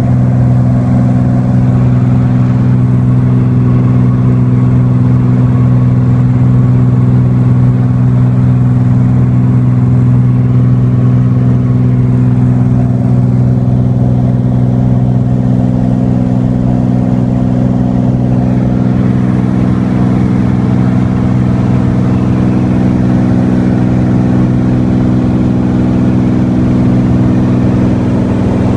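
Light aircraft's piston engine and propeller running at a steady cruise power, heard inside the cabin in flight as a loud, even low drone.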